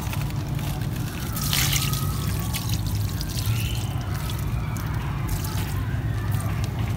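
Liquid fertilizer solution poured from a plastic cup onto damp potting soil, splashing and trickling into it, over a steady low hum.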